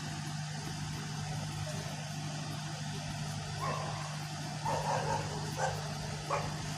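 A dog barking, four or five short barks in the second half, over a steady low drone.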